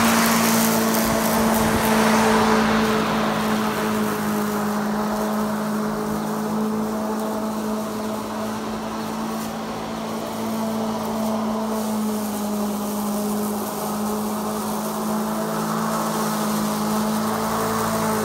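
Greenworks 60V battery-powered self-propelled lawn mower cutting grass: a steady electric motor and blade hum over the hiss of grass being cut, louder near the start and end as the mower passes close.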